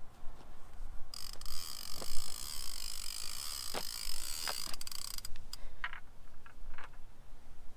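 Fishing reel ratchet clicking rapidly for about four seconds as it is worked during rig setup, followed by a few separate clicks.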